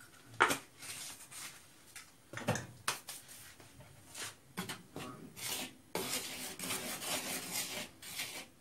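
Metal spoon stirring dry flour in a plastic mixing bowl, scraping and rubbing against the bowl. A few sharp knocks come in the first three seconds, the loudest about half a second in, and a denser run of scraping follows near the end.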